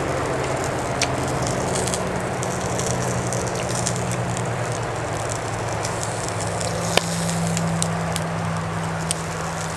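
Charcoal grill crackling with a steady hiss and a few sharp pops, over a steady low hum.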